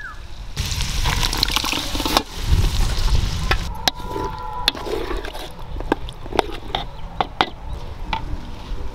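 A ladle stirring thick curry with freshly ground masala in a metal pot over a wood fire. A frying hiss starts about half a second in and lasts for over a second. It is followed by stirring and a string of sharp clicks as the ladle knocks against the pot.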